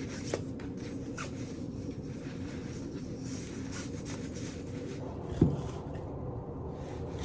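Pen writing on paper: faint scratching strokes, then one soft thump about five seconds in.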